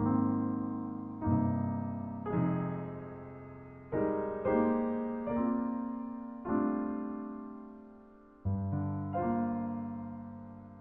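Slow, gentle piano music: single notes and chords struck about once a second and left to fade.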